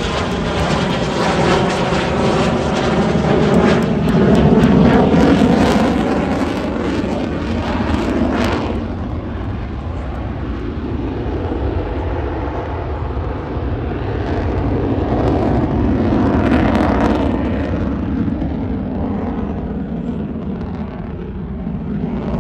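F-16 Fighting Falcon's single jet engine passing overhead: a loud, continuous jet rumble with a sweeping, phasing whoosh through the first several seconds. The hiss drops away about nine seconds in, the sound swells again later, then fades as the jet flies off.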